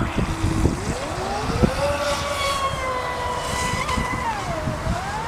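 Leopard 4072 brushless electric motor of a fast RC speedboat whining, rising in pitch as the throttle opens about a second in, holding steady, then dipping briefly near the end and rising again. A low rumble with scattered thumps runs underneath.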